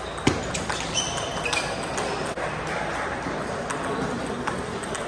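Table tennis ball clicking off paddles and the table in a rally, irregular sharp clicks with the loudest about a third of a second in, mixed with fainter clicks from other tables. A couple of brief high squeaks about a second in, shoes on the floor.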